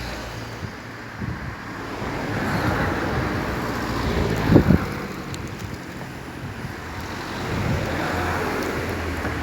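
Water of a wide river rushing steadily in a noisy wash that swells and ebbs, with wind buffeting the microphone, most loudly in a short gust about halfway through.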